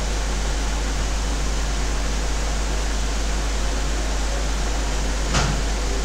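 Steady hiss of room or recording noise over a constant low hum, with one short click about five seconds in.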